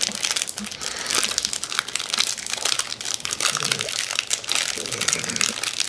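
Chocolate bar wrapper crinkling as it is peeled open by hand, a continuous irregular crackle.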